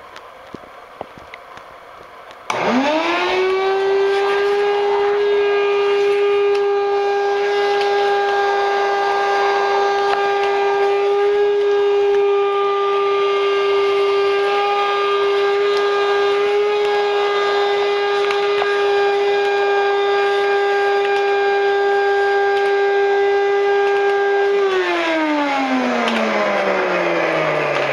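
Canister vacuum cleaner switched on about two and a half seconds in: its motor whines quickly up to speed and runs at a steady pitch. Near the end it is switched off and winds down with a falling whine.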